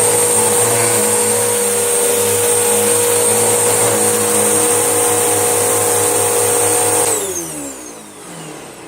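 Panasonic bagged vacuum cleaner running steadily with a high whine while picking up debris, then switched off near the end, its motor winding down with falling pitch.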